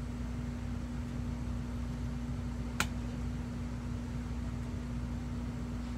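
Steady low room hum and hiss with one sharp click a little before the middle, fitting the cap of a plastic squeeze bottle of sauce being snapped open before pouring.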